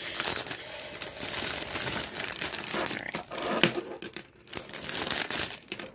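Clear plastic packaging bag crinkling and rustling as it is opened and handled and a drill pen is pulled out, with a sharper tap a little past halfway.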